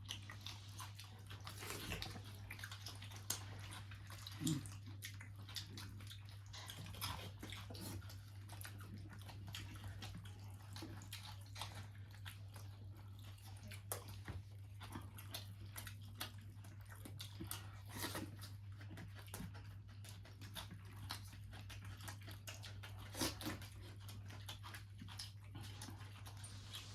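Quiet eating sounds: scattered wet clicks and smacks of chewing a meal of fish curry and rice, over a steady low hum.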